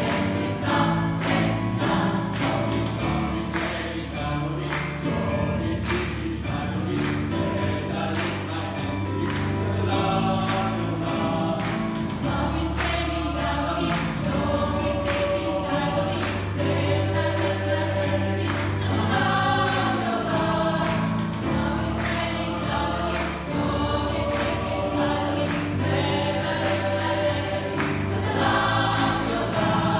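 Gospel choir singing in full harmony, backed by a band with a steady, even beat and low held bass notes.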